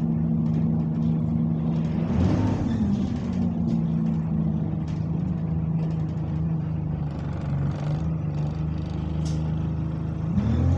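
Single-deck bus's diesel engine heard from inside the cabin, running under way with a steady moaning drone; the pitch shifts briefly about two seconds in and climbs near the end as the bus accelerates. The uploader puts the bus's noise down to a burst turbo.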